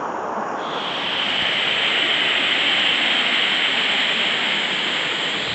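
Rushing river water, a steady loud wash of noise with a brighter hiss joining in about half a second in.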